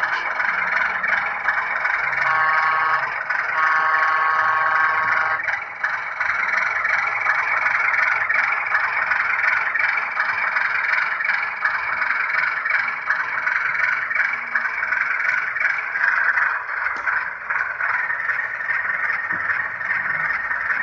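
Onboard sound of a Bowser Baldwin AS-616 model diesel locomotive, a steady thin diesel engine sound from a small speaker with no bass, broken by two horn blasts, a short one about two seconds in and a longer one just after.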